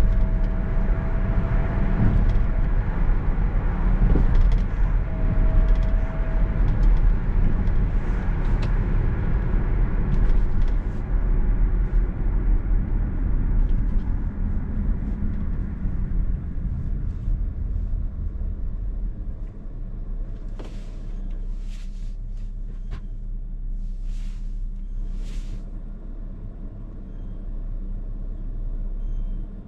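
Engine and road noise heard inside a car's cabin while driving, steady and low, easing to a quieter idle about two-thirds of the way through as the car slows to a stop.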